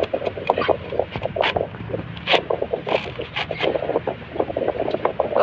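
Thick pomelo rind being sliced off against a bonti's upright curved blade: quick, irregular scraping and cutting strokes, several a second, as the fruit is turned and pared.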